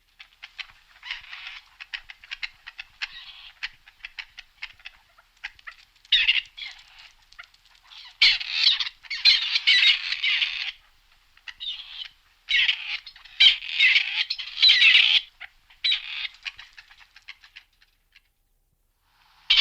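Grey partridge calling: a run of quick clicking notes, then from about six seconds in a series of loud, harsh, grating bursts, each one to two seconds long.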